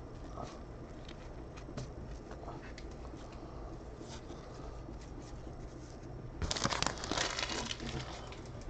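Trading cards and their pack wrapper being handled by gloved hands: faint light ticks and slides of card on card, then a louder crinkling rustle about six and a half seconds in that lasts about a second and a half.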